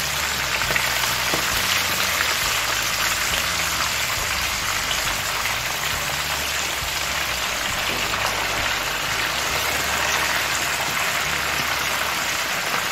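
Hake fish pieces sizzling steadily in hot vegetable oil in a frying pan.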